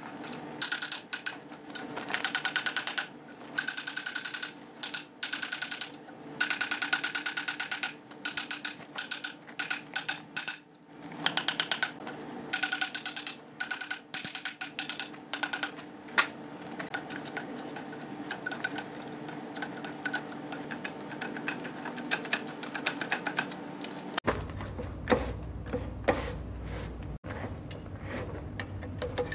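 Carbon air arc gouging rod cutting into a seized steel nut: a loud, harsh crackle from the arc and the air blast, in short bursts with brief breaks, opening a groove to free the nut. Near the end it gives way to a deeper, steadier noise.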